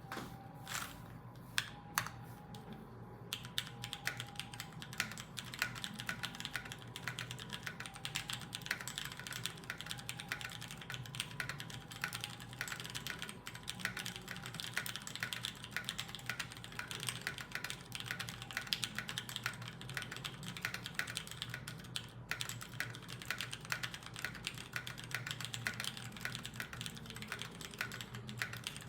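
Typing on a UTD 356 mini mechanical keyboard with Cherry MX Vintage Clear switches and DCS keycaps: a few separate keystrokes, then fast continuous typing from about three seconds in.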